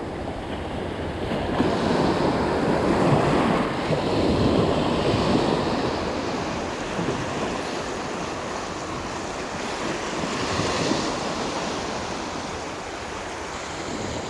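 Sea waves washing in and breaking, swelling loudest about two to five seconds in and again shortly before the end, with wind buffeting the microphone.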